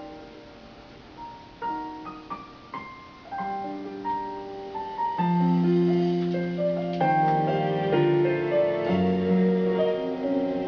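Slow piano music: a few separate notes at first, then fuller sustained chords from about five seconds in, like the introduction to a ballad.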